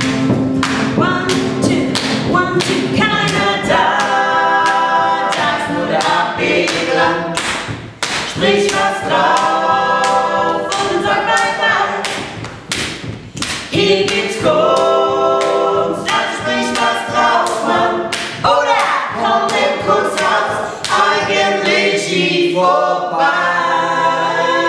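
A small group of voices singing a short tune together in harmony, in phrases, over a steady beat of hand claps and slaps.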